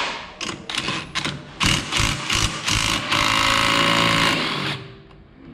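Cordless impact wrench hammering on a scooter's variator pulley nut: several short bursts, then a continuous run of about a second and a half that stops suddenly.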